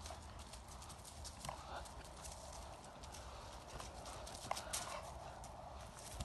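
A dog's paws scuffing and crunching on a gravel path as she jumps, with her jaws snapping at a bouncing balloon: an irregular run of clicks and crunches, the sharpest about four and a half seconds in. A steady low rumble lies underneath.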